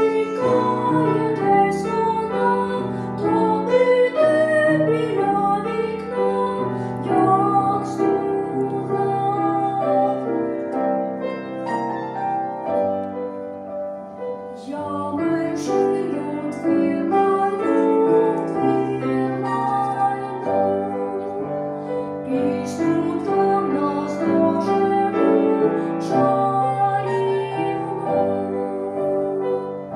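A boy singing a song in a high voice, accompanied on a grand piano.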